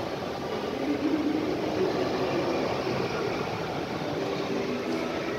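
Steady background hum of a large train-station concourse, with faint distant voices wavering through it.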